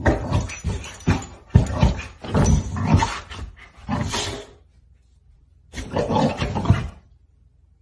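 A dog growling and grumbling in a string of rough bursts, then one more burst after a short pause.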